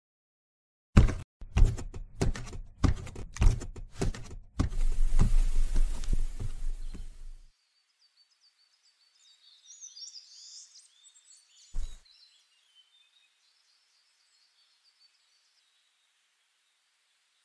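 Cartoon sound effects: a quick run of loud, uneven thumps and knocks, then about three seconds of heavy noisy rumbling that cuts off. After a pause come faint bird chirps and a single soft thud.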